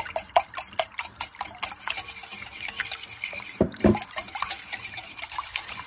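Wire balloon whisk beating raw eggs in a glass mixing bowl: rapid rhythmic clinking of the wires against the glass, about five or six strokes a second. A louder thump comes about two-thirds of the way through.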